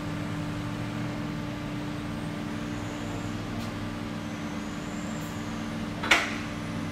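Scissor lift's electric hydraulic pump humming steadily as the lift raises the car, with one sharp metallic click about six seconds in.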